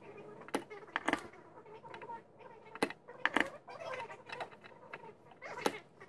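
Spring-loaded desoldering pump (solder sucker) clicking as it is fired and re-cocked to clear solder from a bad diode's leads: a handful of short, sharp clicks spread across a few seconds.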